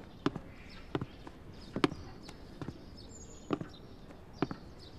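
Slow, evenly spaced footsteps of shoes on a hard floor, about six steps.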